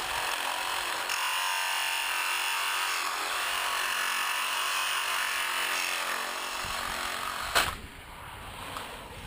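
Power saw running steadily as it cuts through a cordless drill. It stops about seven and a half seconds in with a sharp knock.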